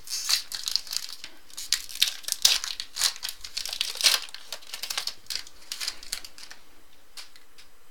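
A trading card pack's foil wrapper being torn open and crinkled by hand, an irregular crackling that dies down about six and a half seconds in.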